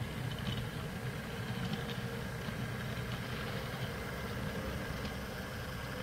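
Model goods train moving slowly along the layout's track: a steady low hum of the running train, with a few light clicks of wheels over the rails in the first couple of seconds.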